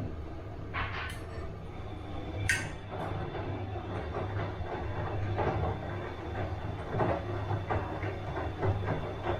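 Bosch washing machine running, with a steady low hum under irregular knocks and clunks. Two short hisses come about one and two and a half seconds in.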